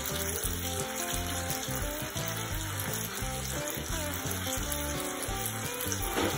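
Spaghetti sizzling in a hot frying pan as it is stirred and tossed with chopsticks, a steady frying hiss, with background music underneath.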